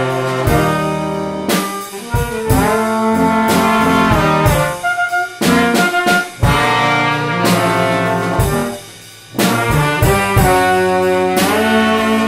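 Small jazz band playing, with trumpet and other brass horns over drums. The music dips briefly about nine seconds in.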